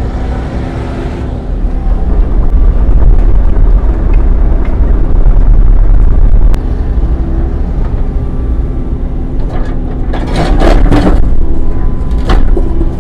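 Heavy diesel machine engine running steadily with a deep rumble, its load shifting a couple of times, with a few brief hissing or scraping bursts about ten seconds in.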